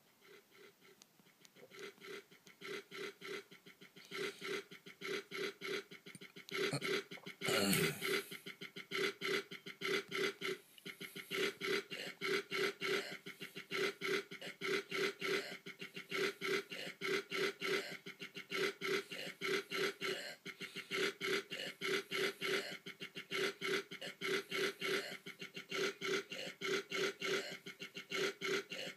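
Looped beat built from sampled burps on a Dopplerpad: short burp hits repeating in a steady rhythm, with layers coming in and getting louder over the first few seconds. A longer, louder burp that drops in pitch comes about seven to eight seconds in.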